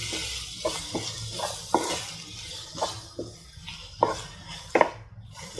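Wooden spatula stirring chopped onions, garlic and ginger frying in oil in a pan: a light sizzle with repeated knocks and scrapes of the spatula against the pan, roughly every half second.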